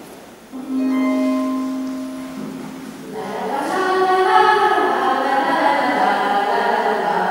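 A single held note sounds from about half a second in; from about three seconds several voices come in singing overlapping sustained notes together, getting louder.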